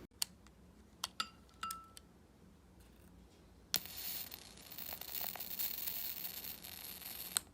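Electric arc lighter: a few clicks and a light glassy clink, then the arc switched on with a click, giving a steady crackling hiss for about three and a half seconds before it cuts off with another click.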